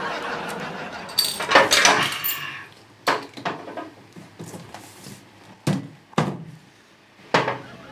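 A man drinking from a glass beer bottle, then several sharp knocks and clinks of glass bottles being handled and set down on a table.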